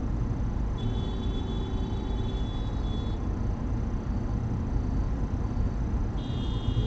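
Steady low rumble of idling traffic and the car's own engine, heard from inside a stopped car through a dashcam microphone. A faint high-pitched steady tone comes in about a second in for some two seconds, and again near the end.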